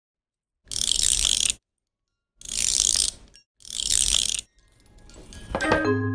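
Wooden AM680 steampunk submarine DIY music box being wound: three bursts of fast ratchet clicking, each about a second long. Near the end the spring-driven movement starts and plucks its first tinkling notes.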